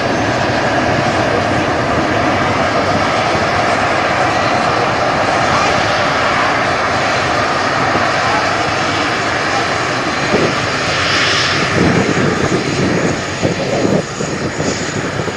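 Airliner engines running with a steady, loud roar. Gusts of wind buffet the microphone in the last few seconds.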